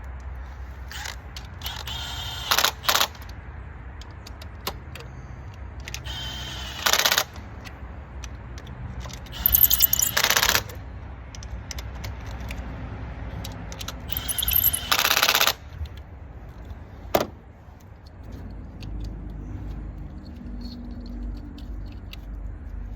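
Impact gun turned down to its lowest setting, running in the coil pack hold-down bolts in four short bursts of about a second each, with a single sharp click later on.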